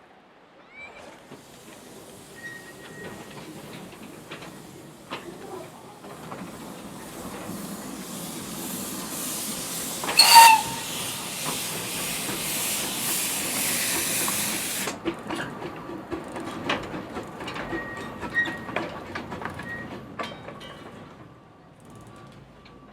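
Small narrow-gauge steam locomotive venting steam: a hiss that swells for over ten seconds and then cuts off suddenly, with a short whistle blast partway through. Scattered metallic clanks and knocks follow.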